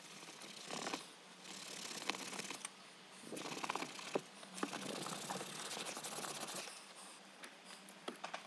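Cloth scrubbing the leather of a car seat backrest with leather prep, stripping the old colourant: several bouts of rubbing with short pauses between them and a few sharp clicks.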